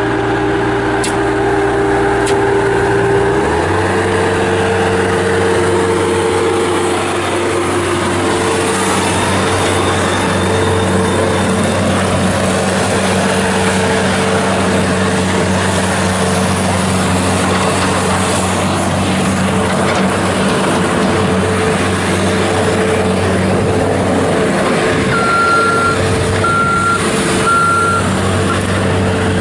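2010 Bobcat S205 skid steer's Kubota diesel engine running, stepping up to a higher, steady speed a few seconds in and holding there. Near the end its backup alarm beeps three times.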